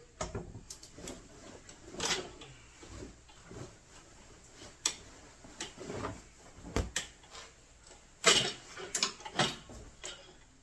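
Irregular clicks, knocks and small rattles of tools and hardware being handled, the loudest a sharp knock about eight seconds in.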